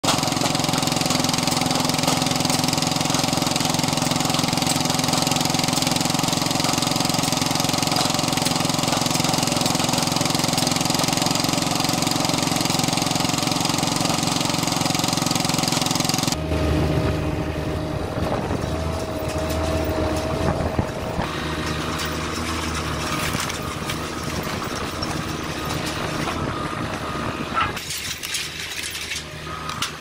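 Hydraulic log splitter machinery running steadily while logs are split. About sixteen seconds in, the sound cuts abruptly to a quieter machine with a steady whine and a few sharp knocks near the end.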